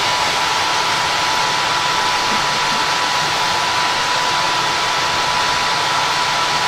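Airport people-mover train running along its guideway, heard from inside the car: a steady rushing noise with a thin, steady high whine on top.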